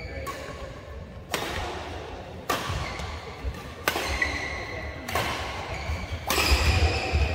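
Badminton rackets striking a shuttlecock in a doubles rally, six sharp hits about a second apart, each echoing in the hall. The hardest hit, about six seconds in, comes from an overhead smash.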